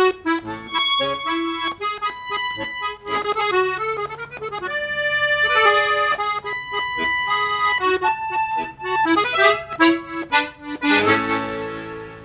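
Accordion playing an instrumental folk melody, with quick runs of notes over held bass notes, closing on a chord that fades near the end.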